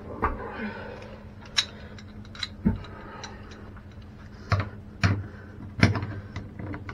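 Scattered sharp metal clicks and taps of tongue-and-groove pliers being handled and worked against the old closet bolts on a toilet flange, over a faint steady low hum.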